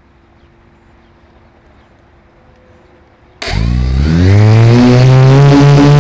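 Quadcopter's 1000kv RCTimer brushless motors spinning up from rest with their 10-inch props: after about three seconds of faint background, a loud motor whine starts suddenly, rises in pitch for about a second, then holds steady.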